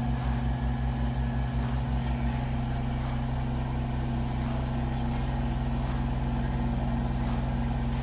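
Kubota BX23s compact tractor's three-cylinder diesel engine running at a steady speed while it drives the backhoe hydraulics, with a few faint clicks as the trenching bucket digs.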